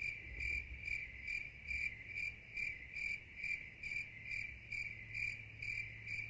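Cricket chirping: a steady high trill pulsing evenly about two to three times a second, switching on and off abruptly like an edited-in sound effect.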